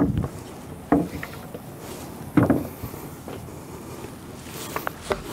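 Heavy knocks of wood on wood as a long timber brace is worked into place against a post on a timber bridge frame: a dull thud at the start, two sharp knocks about one and two and a half seconds in, and a few light taps near the end.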